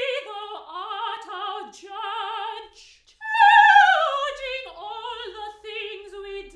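A single voice singing in an operatic style with heavy vibrato, holding long notes. It pauses briefly about three seconds in, then comes back louder with a long falling phrase.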